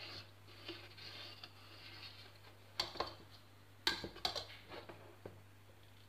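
Metal ladle stirring thick champorado porridge in a stainless steel pot: faint stirring with a few sharp clicks of the ladle against the pot, clustered in the second half. A faint steady low hum runs underneath.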